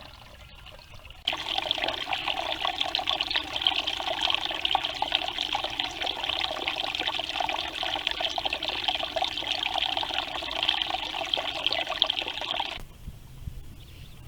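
Water trickling steadily; the sound starts abruptly about a second in and stops abruptly near the end.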